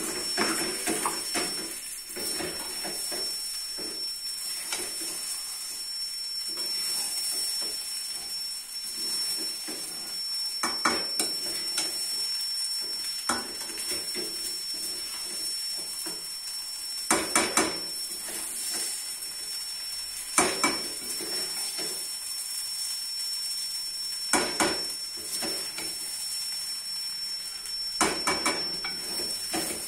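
A metal slotted spoon stirring and scraping thick semolina halwa in an aluminium karahi, with sharp clinks of the spoon against the pan every few seconds, some in quick runs of two or three, over a steady high hiss.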